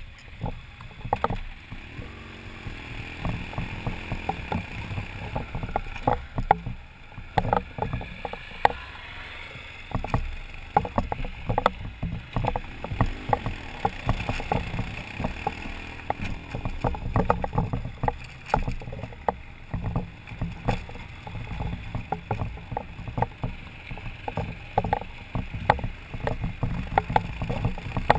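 BMW adventure motorcycle's engine running at low speed on a rough dirt track, with frequent sharp knocks and rattles as the bike bounces over rocks.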